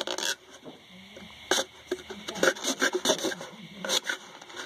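Hand-held saw blade cutting through a plastic bottle: irregular rasping strokes, with a quieter pause of about a second near the start.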